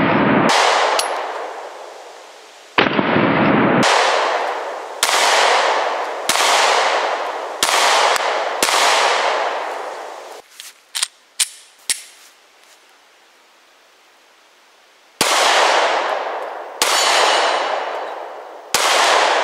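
Glock 43 9mm pistol firing a string of about six shots roughly a second apart, then a few light clicks, a pause, and three more shots near the end. Each shot cracks sharply and echoes, fading over about a second.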